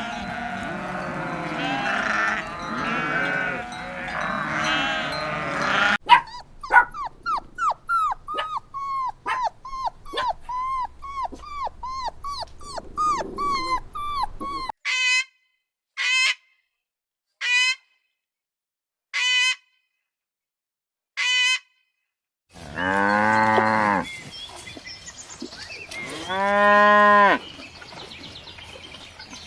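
A sequence of farm animal calls. First a flock of sheep and goats bleating together. Then a dog yapping rapidly, then single barks about every second and a half, and near the end a cow mooing twice in long, low calls.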